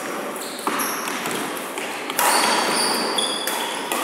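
Badminton rally: racket strikes on a shuttlecock, twice about a second and a half apart, each ringing on in a large echoing hall, with short high squeaks from players' shoes on the wooden court between them.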